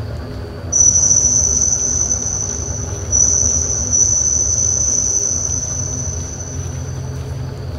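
Crickets trilling in a steady, high-pitched chorus that swells just under a second in and again around three seconds, easing off near the end, over a low background rumble.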